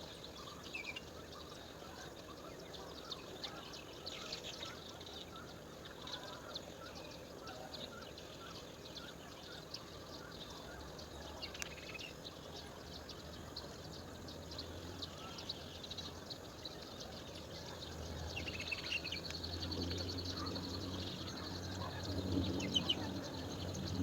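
Wild birds chirping and calling in short, scattered notes over steady outdoor background noise. A low hum comes in about three-quarters of the way through and grows louder.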